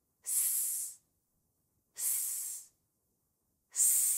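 A woman saying the pure 's' phonics sound, a drawn-out 'sss' hiss, three times, each lasting under a second.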